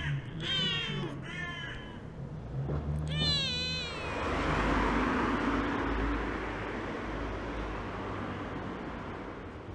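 Ginger kitten meowing: a few short meows, then one louder, longer meow about three seconds in. After it, a rush of noise swells and slowly fades.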